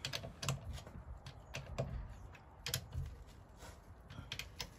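Irregular light metallic clicks and taps of a wheel brace and socket being worked on car wheel nuts as they are loosened.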